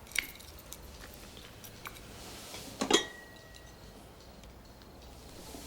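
Cutlery clinking on china plates at a dinner table: a few sparse clinks, the loudest about three seconds in, which rings on briefly.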